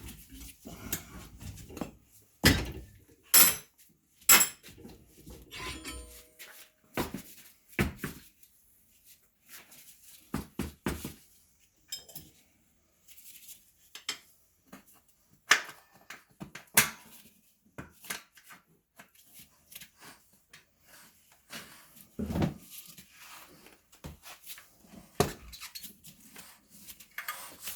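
Steel tire irons clinking and knocking against a motorcycle wheel's rim as the tire is pried off. The knocks come irregularly, with short quiet gaps between them.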